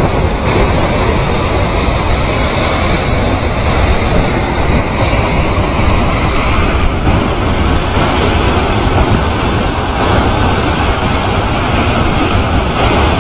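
Debris flow of mud and rocks moving down a channel: a loud, steady rumble of grinding and tumbling stones.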